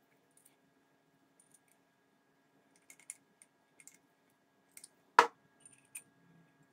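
Light metallic clicks and taps as a round threading die is handled and fitted into a steel die holder, with one much louder sharp metal knock about five seconds in.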